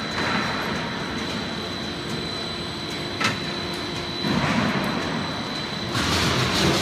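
Heavy-gauge purlin roll forming machine running, its rollers and chain drive making a steady mechanical noise with a thin high whine. There is a sharp click about three seconds in, and the noise grows louder about four and six seconds in.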